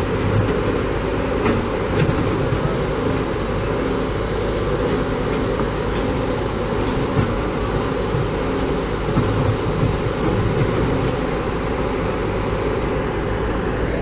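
Diesel engine of a backhoe loader running steadily, with no change in pitch or level.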